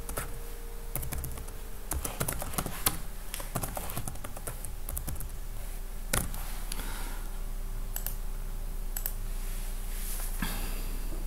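Typing on a computer keyboard: quick runs of keystrokes in the first few seconds, then a few single clicks spaced out, over a faint steady hum.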